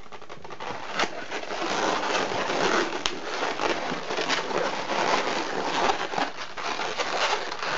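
Latex twisting balloons being handled and twisted, giving a dense rubbing and crackling, with sharp clicks about a second in and again about three seconds in.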